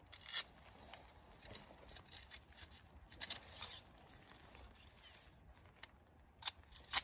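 Metal tubes of a collapsible bucksaw frame being slid and fitted together by hand: light scrapes and clicks, with a longer scrape midway and two sharp clicks near the end, the last the loudest.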